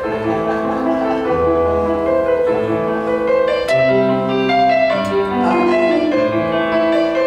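Keyboard music: slow, sustained chords changing about once a second over a low bass line, with no singing.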